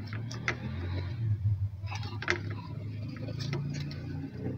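A metal spoon tapping and scraping a few times while spreading sauce on toasted burger buns on a plate, over a steady low hum.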